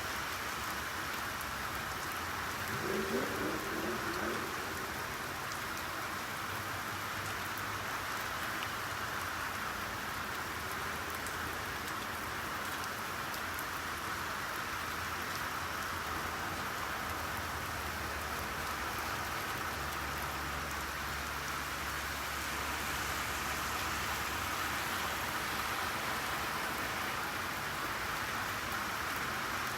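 Steady rainfall: an even, continuous hiss of rain falling on surfaces. A brief pitched sound rises about three seconds in, and a low rumble comes in about twenty seconds in and lasts a few seconds.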